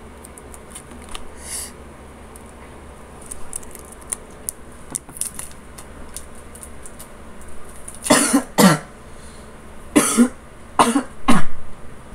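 A person coughing hard about five times in short fits over the last four seconds, after some faint rustling and clicks.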